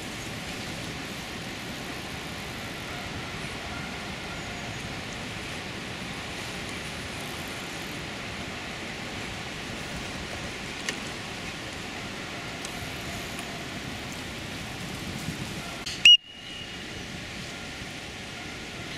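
Steady outdoor background hiss, like wind on the microphone in an open field. About sixteen seconds in, one brief loud sharp sound with a high ringing tone, after which the background is briefly cut and then comes back a little quieter.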